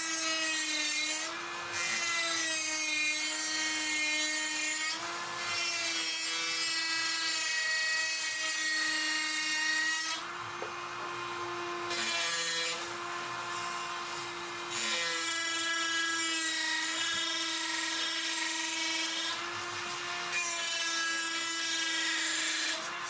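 Dremel rotary tool running at high speed and cutting, a steady high whine with a gritty grinding hiss on top. The cutting noise eases off briefly several times as the load on the bit drops, while the motor keeps running.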